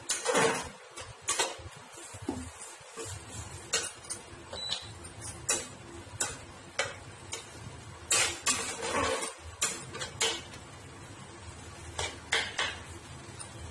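Flat metal spatula stirring thick lentil dalma in a metal pan: scraping through the mixture, with a dozen or so sharp clinks at irregular moments as it knocks the sides and rim of the pan.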